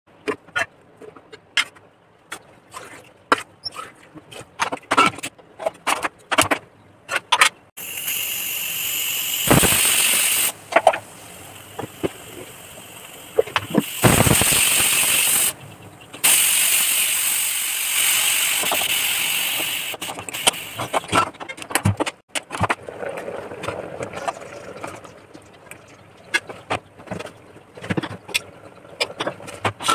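Stovetop pressure cooker whistling twice: loud hissing of steam escaping under the weight valve, once about eight seconds in and again about six seconds later, the usual signal that it has come up to pressure. Scattered light clicks and knocks come before and after.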